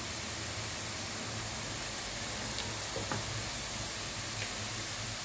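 Diced onions sizzling gently in oil in a frying pan, a steady hiss with a few faint ticks.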